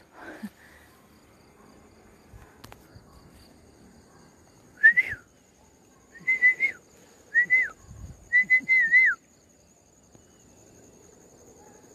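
A person whistling to call the dogs: four short, clear calls, each a held or rising note that drops away at the end, the last one broken into three quick parts.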